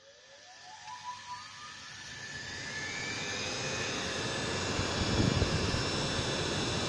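Electric motor of a homemade wood lathe switched on and spinning up, its whine rising in pitch over the first two or three seconds, then running steadily at full speed with a rushing noise from the spinning spindle and fan.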